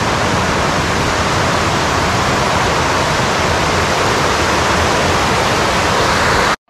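Waterfall cascade: fast, high water rushing over broad bedrock in a steady, loud roar. It cuts off suddenly near the end.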